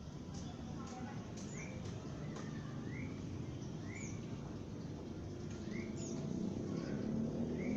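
Eurasian tree sparrows chirping: short rising chirps, about one a second, over a steady low background rumble.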